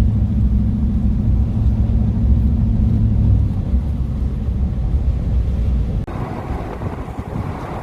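Steady low drone of a vehicle driving, heard from inside. About six seconds in it cuts abruptly to a rushing noise like wind on the microphone.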